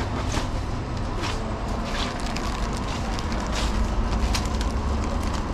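Scattered crinkles and rustles of plastic snack packets being handled, over a steady low rumble.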